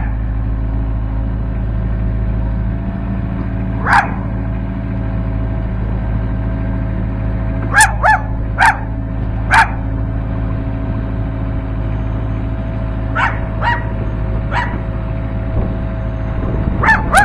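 A dog barking in short single barks: one about four seconds in, a quick run of four around eight to ten seconds, fainter ones a few seconds later and another near the end. Under the barks, the CAT 308C excavator's diesel engine runs with a steady drone.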